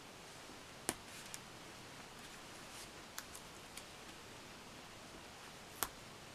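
Faint handling of paper stickers being pressed and smoothed onto a spiral planner page by hand, with a few sharp light clicks of fingers and nails on the paper, the loudest about a second in and near the end.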